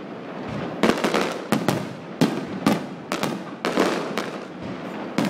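Fireworks display: a string of sharp bangs from exploding shells, about two a second from about a second in, over continuous crackling.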